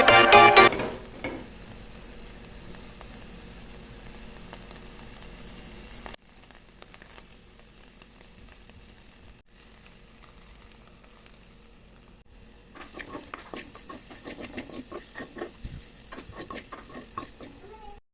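Dried fish frying in hot oil in a pan, a steady sizzle. In the last few seconds a spatula stirs and scrapes in the pan, adding irregular clicks and knocks.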